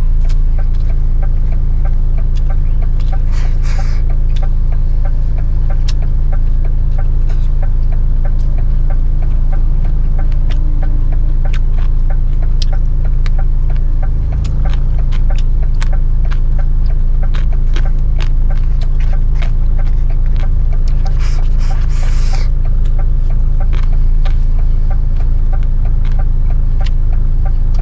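Truck's diesel engine idling steadily, heard from inside the cab as a loud, even low rumble. Scattered light clicks sound over it, with two short hisses about 4 seconds in and about 22 seconds in.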